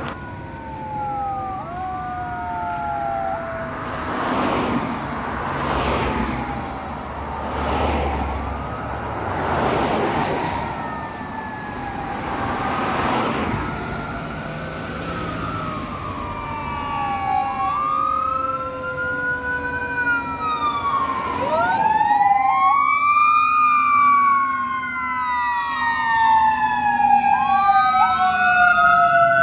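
Fire engine sirens on an approaching Spartan Gladiator pumper: electronic wail and yelp tones sliding up and down, several sounding at once. From about two-thirds of the way in, a mechanical Federal Q2B siren winds up in rising sweeps and coasts down in a long falling tone, growing louder as the engine draws near.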